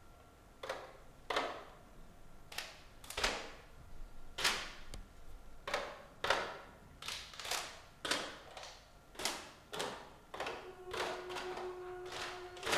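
A series of sharp taps or knocks, each ringing briefly, at first roughly one or two a second and coming faster near the end. Under them is a faint steady held tone, joined by a lower held tone about ten seconds in.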